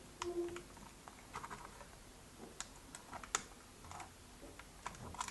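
Faint, scattered clicks and ticks of a Phillips screwdriver turning and loosening the small screw in a netbook's plastic memory cover, with a brief faint squeak near the start.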